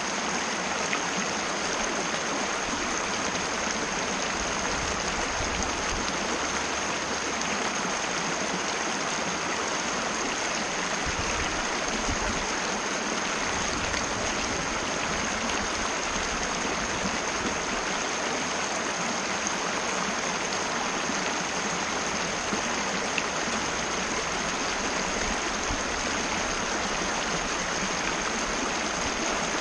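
Mountain river water rushing steadily over rocks, an even continuous flow with no pauses.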